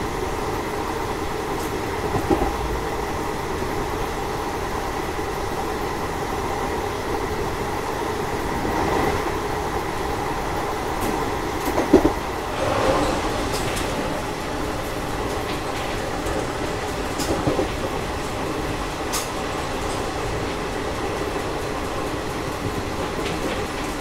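A passenger train running at speed, heard from beside a coach: a steady rumble of wheels on rail with a few louder knocks, the loudest about halfway.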